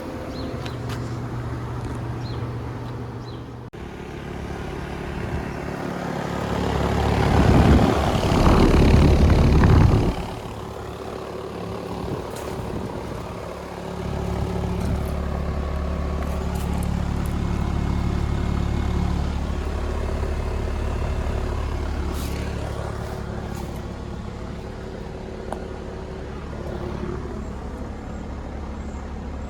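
Residential central air conditioner condensing units running in cooling mode, a Tempstar Performance unit and then, after a cut, a Carrier Comfort unit: a steady compressor hum with fan noise. A louder rushing noise swells up several seconds in and stops abruptly, before the steady low hum resumes.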